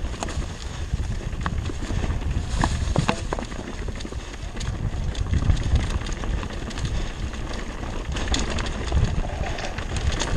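Mountain bike rolling down a rough dirt trail: a steady low rumble of wind and frame vibration on the microphone, with frequent sharp knocks and rattles as the tyres hit roots and stones.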